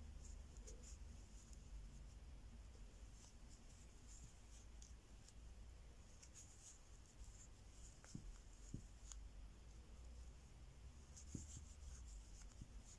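Near silence: faint rubbing and a few light clicks of a metal crochet hook pulling yarn through single crochet stitches, over a low hum.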